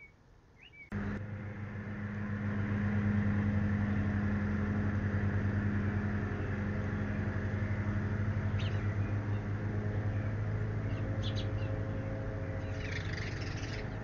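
A steady low mechanical hum, like an engine or motor running, starts suddenly about a second in and holds, with a few short bird chirps over it near the start and again later on.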